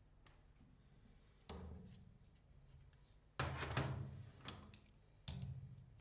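A few sharp knocks and clatters from hand work with metal pipe parts and tools on a workbench. The loudest, about halfway through, rattles on for most of a second.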